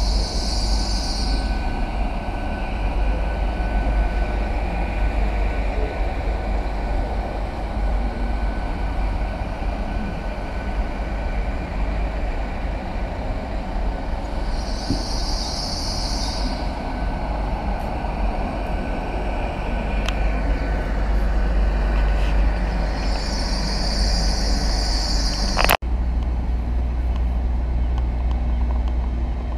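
GWR passenger train rolling slowly over curved track and points: a steady rumble of wheels on rails with a high-pitched wheel squeal three times, near the start, about halfway, and shortly before the end. After a sudden cut near the end, a steady low hum from a GWR Class 800 train standing at the platform.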